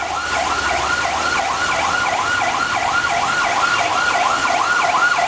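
A siren in fast yelp mode, its pitch sweeping up and down about four times a second without a break.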